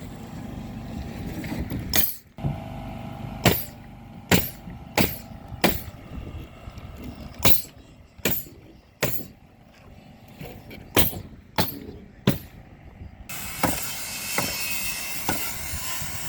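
About a dozen sharp knocks at uneven intervals over a steady low background noise, from work on a roof; about three seconds before the end, a louder steady hiss takes over.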